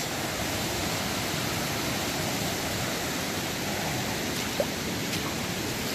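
Shallow floodwater rushing steadily over the ground, an even watery roar.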